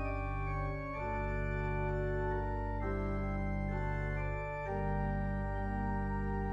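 Church organ playing the closing postlude: sustained chords that change every second or two over a steady held bass.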